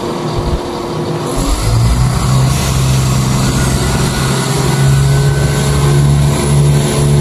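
An approaching Southern passenger train: a steady low hum that comes in about a second and a half in and grows louder as the train nears.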